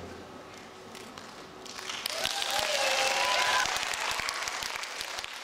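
Audience applauding, swelling about two seconds in as the music stops, with a few voices calling out over the clapping, then fading.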